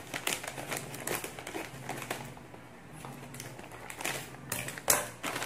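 Plastic snack bag crinkling as it is cut open across the top with scissors and handled. There is a run of small crackles, and one loud crackle near the end.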